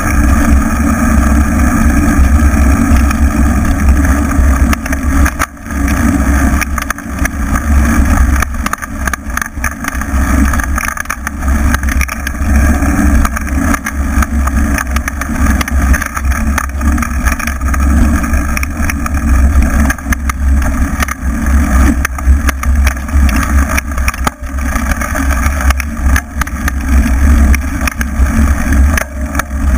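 Wind buffeting the microphone of a camera mounted on a mountain bike, mixed with the knobby tyre rolling over a dirt track: a loud, steady low noise.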